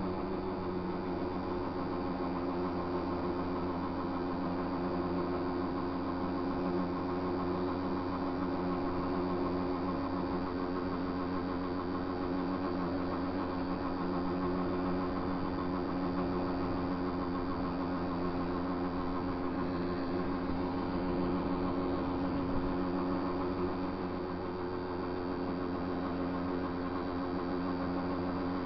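Small motorcycle engine running steadily at cruising speed, one unchanging pitch throughout.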